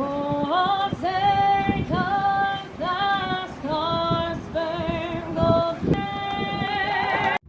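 Background music: a high melody, sung or played in a voice-like way, in short phrases that slide up into each note, over a steady accompaniment. It cuts off abruptly near the end.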